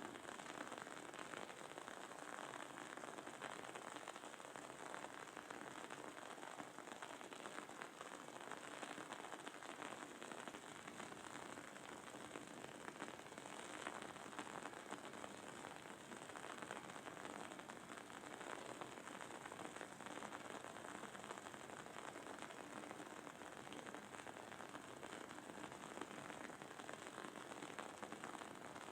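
Wooden candle wick crackling as it burns: a soft, dense, steady patter of tiny pops.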